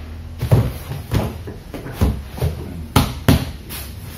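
A series of about six dull thumps and knocks as a leather-covered, wood-framed sofa seat section is set down and shifted into place on its wooden base.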